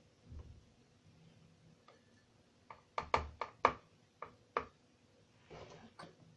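A cluster of sharp knocks and clinks of ceramic crockery, about three seconds in, with a few fainter taps near the end, as an emptied cup is handled and set down on the table.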